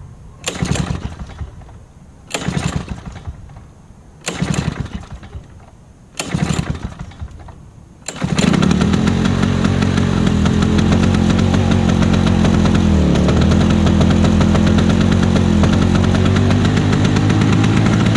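1991 Lawnboy M-series mower's two-stroke, oil-injected engine being pull-started cold on full choke after sitting for months: four pulls on the recoil starter about two seconds apart, then it catches about eight seconds in and keeps running steadily, its speed sagging briefly once.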